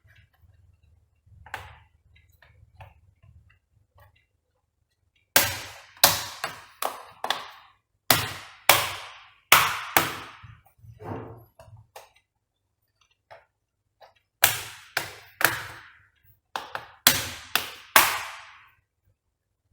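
Sharp clicks and knocks from handling a laptop's plastic casing, coming in quick runs of three to five about half a second apart.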